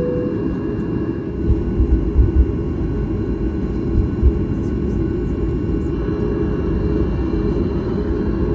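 Boeing 737 MAX 8 cabin noise: a steady low rumble from the engines and airframe, with a few short low thumps between about one and a half and four and a half seconds in.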